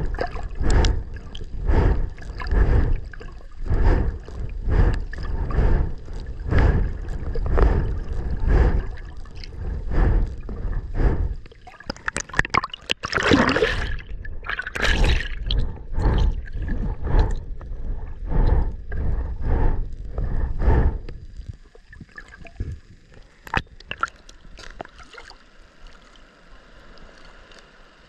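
Water churned by a swimmer's strokes, heard from under the water: rhythmic sloshing surges about one and a half a second, with a louder rush of water about halfway through. The surges thin out and grow quieter in the last quarter.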